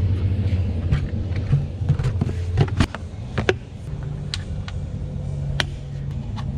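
Steady low machine drone that steps up slightly in pitch about four seconds in, with scattered sharp clicks and knocks of a filter and tools being handled.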